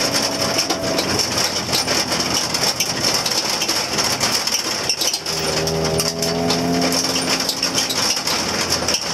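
Rally car's engine running hard on a gravel road, with loose stones pinging and rattling against the underbody, heard inside the stripped cabin. The engine note stands out more clearly from about five seconds in.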